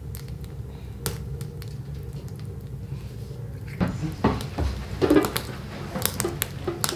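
Water poured from a metal kettle splashing over a goat head in a plastic colander, with wet rubbing and scrubbing of the head by hand. It starts about four seconds in, over a steady low hum with a few small clicks.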